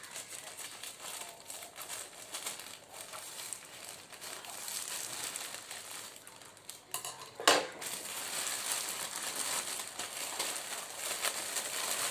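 Parcel packaging crinkling and rustling as it is handled and torn open by hand, with one louder, sharper rasp about seven and a half seconds in.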